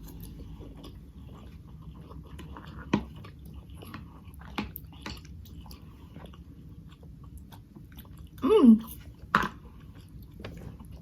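Close-up eating sounds of cheesy macaroni noodles being chewed, with a few sharp clicks. About eight and a half seconds in comes a short hum of the voice that falls in pitch.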